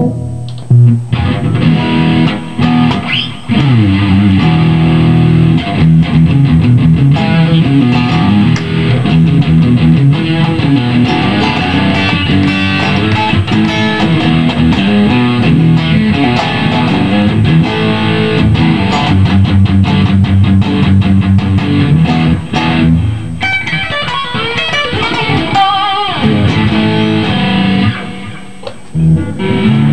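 G&L ASAT Classic electric guitar played through a Fender Cybertwin SE amplifier, a continuous loud passage of chords and notes. Near the end it eases into a softer stretch with a wavering, bent note, then comes back loud.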